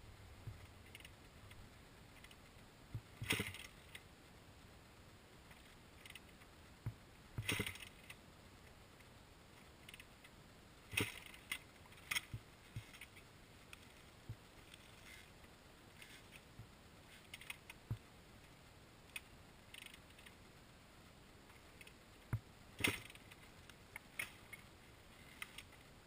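Scattered metallic clicks and clinks of small metal objects being handled, a few seconds apart, with the loudest about 3, 7, 11, 12 and 23 seconds in.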